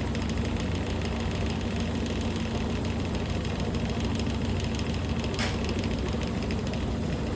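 Washing machine running steadily, plausibly in its spin cycle: a constant motor hum with a fast fine rattle over it, and one brief sharp click about five and a half seconds in.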